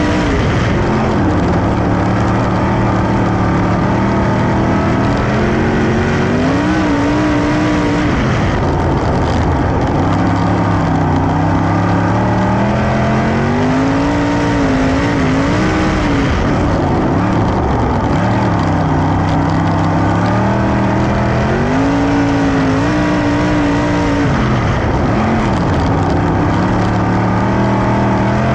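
A 410 sprint car's engine running flat out on a dirt track. Its pitch climbs and holds high along each straight, then drops as the throttle is lifted for the turns, about every seven to eight seconds.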